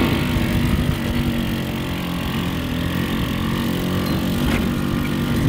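GY6 150cc four-stroke single-cylinder engine of a Yerf Dog Spiderbox off-road go-kart running under throttle while driving, holding a fairly steady pitch with a slight dip about a second in.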